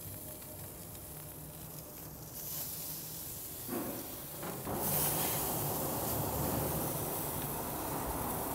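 Chicken skins sizzling on a grill grate over hot charcoal, a steady hiss that grows louder about four seconds in and again about five seconds in as more pieces go onto the coals.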